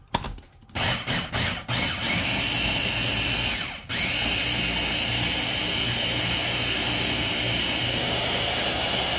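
Countertop blender blending frozen pineapple, frozen bananas, coconut milk and ice cream into a thick smoothie. It is pulsed a few times, then runs continuously, stops for a moment about four seconds in, and starts again.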